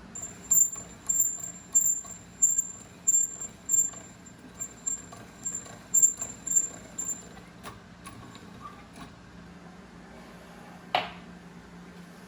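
A pasta machine's spaghetti cutter turning as sheets of dough are fed through, with a high squeak or click about twice a second for about seven seconds. A single short sound comes near the end.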